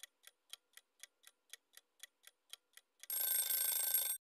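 Quiz countdown-timer sound effect: a clock ticking about four times a second, then an alarm ringing for about a second as the time runs out.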